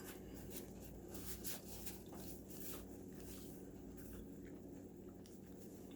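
Faint chewing and small wet mouth clicks of someone eating butter-dipped lobster, scattered irregularly over a steady low hum.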